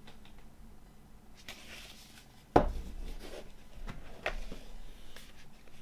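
A cardboard vinyl LP jacket rubbed and slid in the hands, then laid flat on a wooden table with one sharp slap about two and a half seconds in, followed by a few lighter taps and rustles as it is handled.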